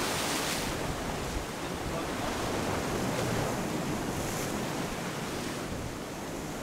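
Ocean surf breaking and washing over rocks, a steady rush of white water.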